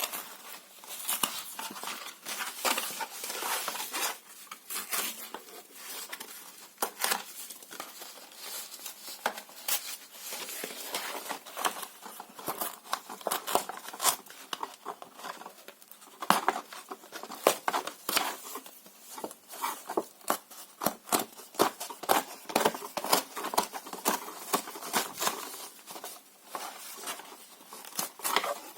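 Paper and cardboard being torn and crumpled close up: a dense, irregular run of rips and crinkles, with sharper, louder tears in the second half.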